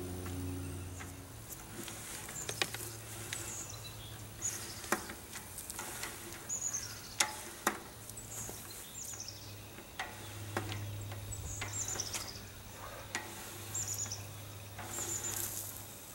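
Small birds chirping, short falling high notes every second or two, with scattered sharp clicks and taps from hands working wires and breakers in a metal solar combiner box. A steady low hum runs underneath.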